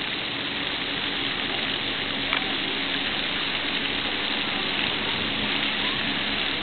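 Steady hiss of water spraying from splash-pad arch nozzles and falling onto wet concrete, with a faint low hum underneath.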